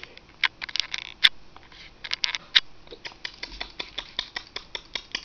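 A rapid run of small, sharp clicks, irregular at first and then about five a second.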